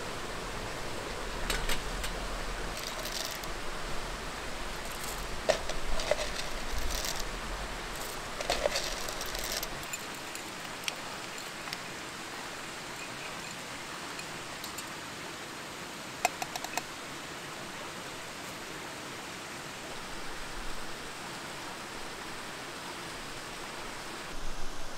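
A steady hiss with scattered light metallic clinks and knocks of camp cookware and a hand coffee grinder being handled on a steel mesh table, busiest in the first ten seconds. Near the end, hot water starts pouring from a gooseneck kettle onto coffee grounds in a paper filter.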